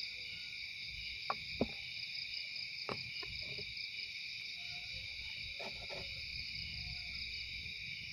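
Night insect chorus of crickets: a steady, shrill, many-layered trill. A few sharp clicks stand out over it, two close together about a second and a half in and another near three seconds.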